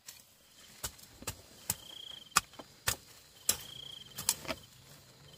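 A series of sharp knocks or strikes, about ten at an uneven pace, with a short high trill heard twice in between.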